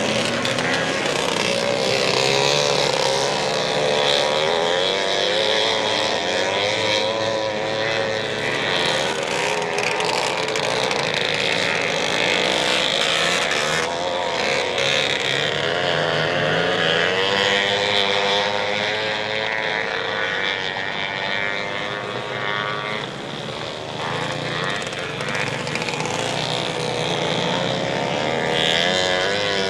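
Off-road ATV engine running and being revved as it is ridden, its pitch rising and falling repeatedly. It eases off briefly a little past twenty seconds in, then picks up again.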